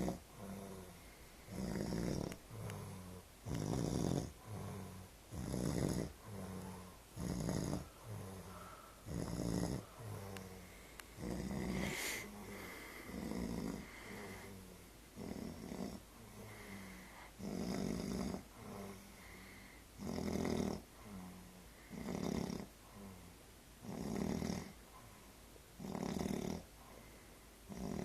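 A person snoring very loudly: a deep, rasping snore about every two seconds, all the way through, some breaths louder than others.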